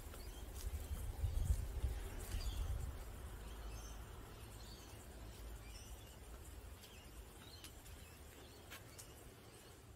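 Garden ambience: scattered faint bird chirps, with a low rumble on the microphone in the first few seconds that fades away.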